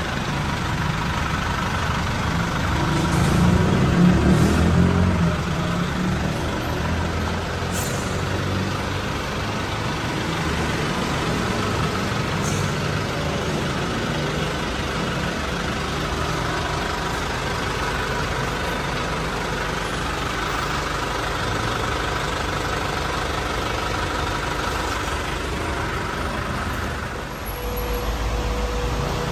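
Truck engine idling steadily, swelling louder for a second or two about four seconds in.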